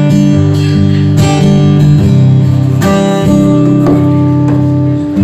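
Guitar strumming chords as the introduction to a song, with a new chord struck about every second.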